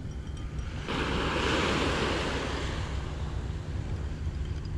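Small waves washing up onto a sandy beach, one wash swelling about a second in and slowly easing off, over a low rumble of wind on the microphone.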